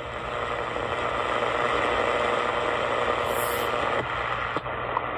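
Shortwave static hissing from the loudspeaker of a Sangean ATS909x2 receiver in AM mode, tuned between stations near 15 MHz with no signal locked in. A faint steady whistle sits under the hiss, and there is a single click near the end.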